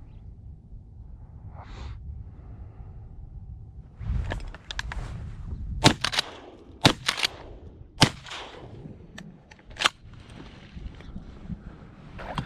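Shotguns firing: a string of about five sharp shots over roughly four seconds, two of them nearly together, after a few quiet seconds of low outdoor rumble.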